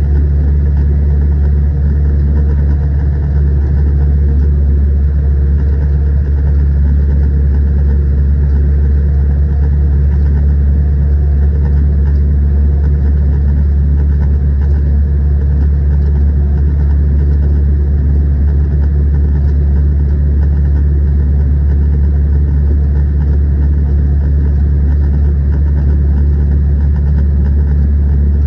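Zetor 6211 tractor's diesel engine running steadily, a loud deep drone that holds one even pitch throughout.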